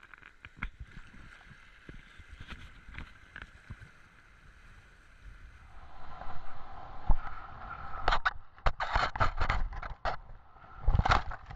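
Towed inflatable tube skimming across choppy water, with water rushing and the towing boat's engine humming faintly and steadily. About six seconds in it grows louder, and from about eight seconds comes a quick run of loud splashes and knocks as the tube crashes and the camera tumbles through the water.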